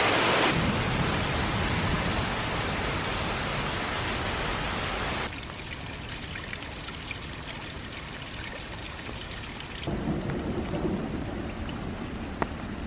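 Heavy rain pouring down onto waterlogged ground and standing water. The sound changes abruptly about five and ten seconds in, and a low, uneven rumble comes in over the last few seconds.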